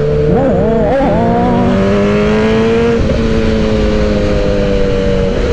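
Suzuki Hayabusa's inline-four engine running under way at road speed. Its pitch wavers up and down about half a second in, then climbs slowly, with a brief dip about three seconds in and another near the end.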